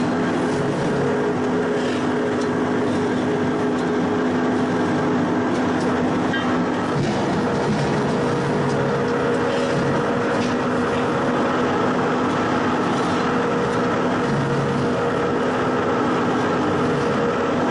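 Fibre shearing machine running steadily, a motor hum with dense mechanical noise over it and a few faint clicks, as it cuts fibrous plant material.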